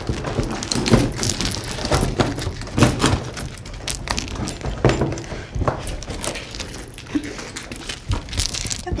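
A string of irregular knocks and thuds, roughly one every second, over a low background rumble.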